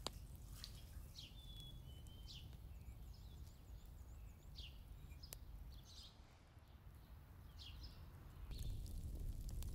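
Small birds chirping in short, high, scattered calls over a faint low rumble of outdoor background noise, with a sharp click at the very start.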